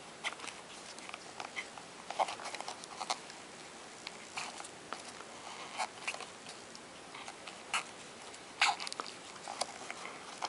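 Close handling noise of a rubber oxygen mask and its masking-tape wrapping: irregular small clicks, crinkles and rubbing as fingers work the end of a cord into a small hole cut in the rubber.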